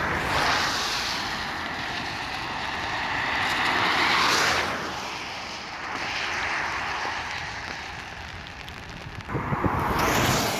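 Aircraft engine noise from an airliner over the airfield, swelling and fading several times. Wind buffets the microphone near the end.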